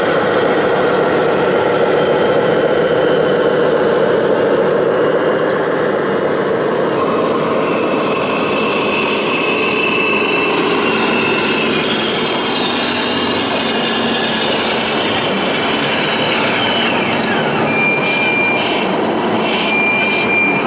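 Steady mixed running noise of RC model trucks in a busy exhibition hall, with a short run of electronic beeps near the end.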